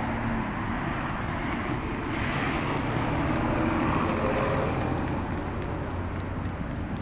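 Road traffic on the street beside the path: a steady rumble of passing vehicles, one engine hum swelling around the middle and fading again.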